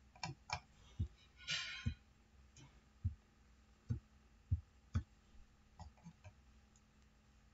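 Faint, irregular low thumps and soft clicks from a computer mouse being clicked, scrolled and moved on a desk, about one a second, with a brief rustle about one and a half seconds in.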